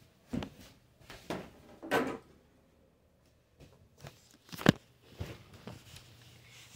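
A few scattered knocks, clicks and rustles from toy cars and the phone being handled. The sharpest click comes about four and a half seconds in.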